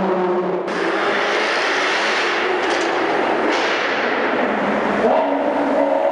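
Car engines and tyre noise from cars passing through a road tunnel, echoing off the tunnel walls, joined in several short edited cuts. A higher engine note rises about five seconds in.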